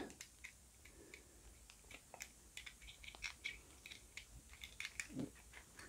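Faint, irregular clicks and light scrapes of a thin metal pick working the brass pin tumblers of a clear acrylic practice padlock, with a tension wrench holding the plug turned.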